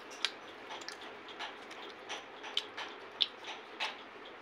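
Popcorn dipped in Nutella being chewed: irregular soft crunches and small clicks over a faint steady hiss.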